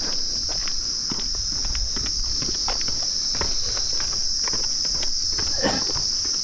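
A steady high-pitched drone of insects, with footsteps scuffing down concrete steps.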